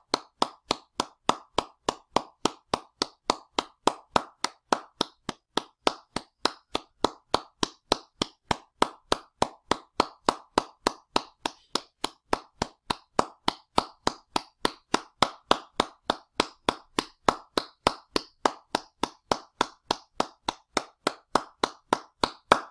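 Hand clapping: one pair of hands clapping at a steady, even pace, about two and a half claps a second.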